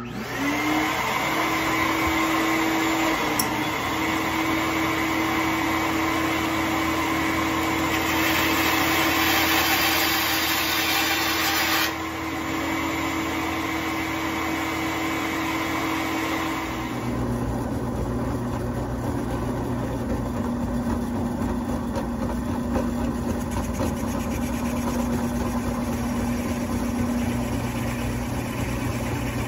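Bandsaw and shop vacuum switching on together, the motor tone rising to speed, then running steadily. For a few seconds near the middle it gets louder and hissier as the blade cuts through deer antler. About two-thirds of the way through, the sound changes to a different steady machine hum with a lower tone.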